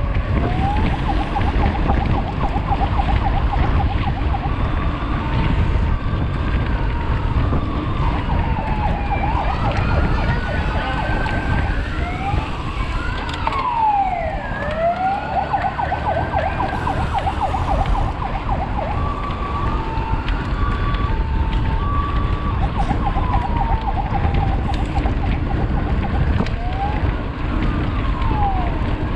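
Riding noise from a mountain bike at race speed: steady wind rush and rattle on the microphone. Over it run whining tones that glide up and down in pitch, some rising while others fall, with a buzzing band in between.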